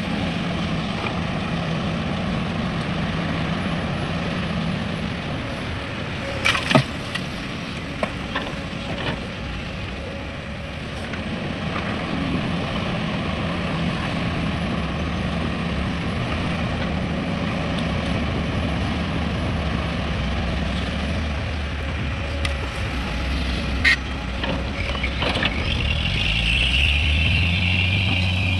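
Heavy diesel machinery engine running steadily, with a few sharp metallic knocks about a quarter of the way in and again near the end; the engine note deepens and grows louder in the last few seconds.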